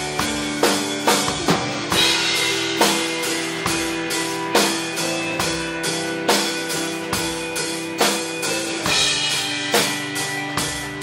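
Live rock band playing an instrumental passage: a drum kit keeps a steady beat with bass drum and snare hits under guitar and held chords.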